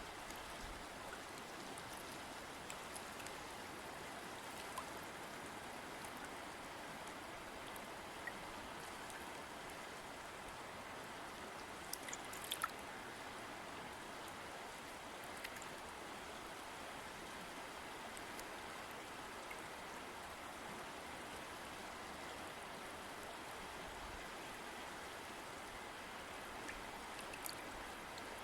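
River water flowing steadily, an even rushing murmur with a few small splashes and drips, two of them plainer about twelve seconds in.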